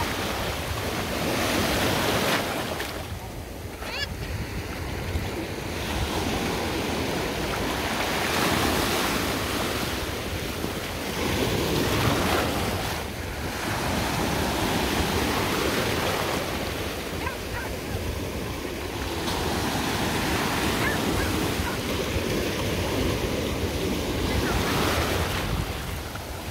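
Small ocean waves breaking and washing through the shallows, the surf noise swelling and easing every few seconds.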